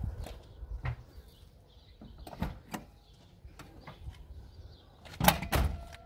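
A series of irregular knocks and clatters, the loudest pair about five seconds in.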